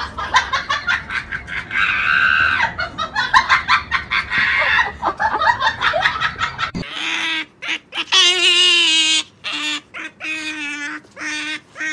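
An otter giving a series of short squeaking calls, about ten of them one after another, starting about seven seconds in. Before that, a busy clatter of clicks mixed with high, wavering squeaky sounds comes from a kitten lunging at a hand.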